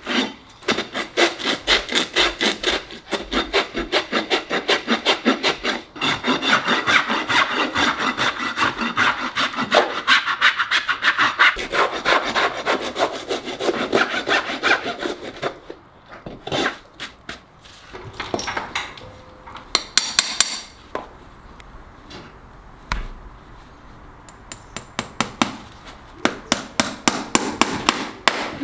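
Farrier's rasp filing a horse's hoof in rapid, even strokes for about the first fifteen seconds. Then quieter, scattered scrapes and knocks follow, and a short run of rasp strokes returns near the end.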